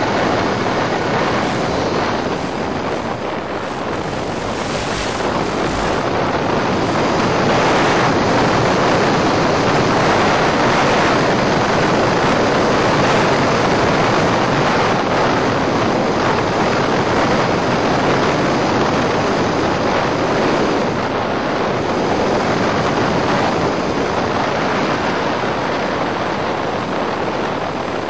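Steady rushing noise, like wind on a microphone, on the onboard audio of an EasyStar FPV model plane in flight, with no clear motor or propeller tone.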